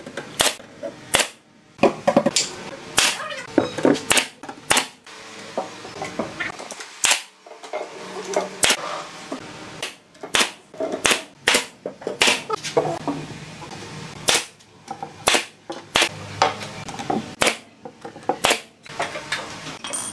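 Pneumatic nail gun firing nails into plywood: about two dozen sharp, loud shots at irregular intervals, often two or three in quick succession, with knocks of the boards being handled between them.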